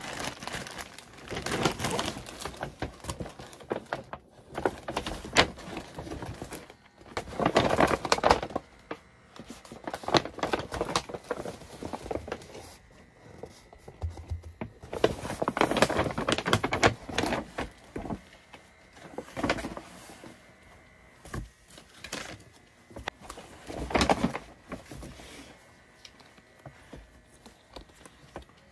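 Irregular clicks, knocks and rustling of objects being handled at close range in a small room, coming in scattered clusters with short lulls between them.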